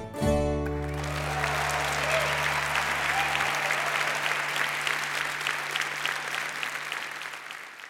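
The last chord of a Portuguese guitar, fado guitar and double bass trio is struck and rings on, its low notes sustaining for several seconds. An audience breaks into applause about a second in, and the clapping fades away near the end.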